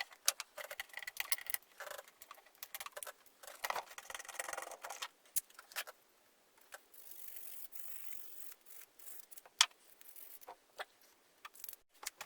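Scattered light clicks, taps and short soft scrapes of small objects being handled, irregular and fairly quiet.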